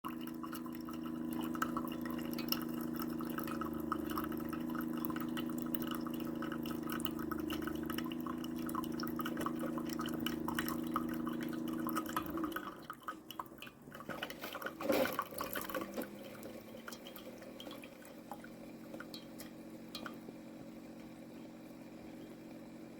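Keurig K-Supreme Plus coffee maker brewing: a steady pump hum with coffee dripping and crackling into the cup. The hum stops about twelve seconds in, a few sputters and clicks follow, then a fainter steady hum remains.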